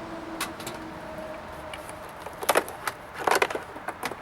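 Sharp plastic clicks and rattles as the wiring connectors are unplugged from the back of a 2007 GMC Yukon Denali's front door panel. There is a single click about half a second in, then two quick flurries of clicks around the middle and a few lighter ones near the end.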